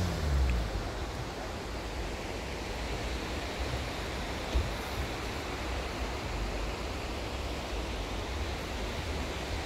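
Steady rushing of the Beas river flowing over a rocky bed, with a single short knock about four and a half seconds in.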